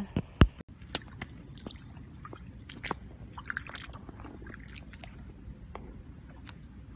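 Rain boot moving in shallow river water over stones: small squishes, splashes and scrapes. A sharp knock about half a second in is the loudest sound.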